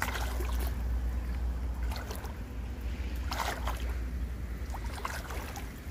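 Wind buffeting the microphone in a steady low rumble, with a few short rustles of dry grass or reeds along the bank.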